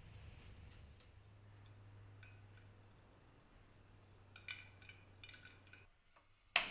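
Ice cubes clinking against a glass dish, a few short ringing clinks. Near the end comes a single sharp click, the loudest sound, as a gas hob burner's igniter sparks the flame, followed by a faint hiss of gas.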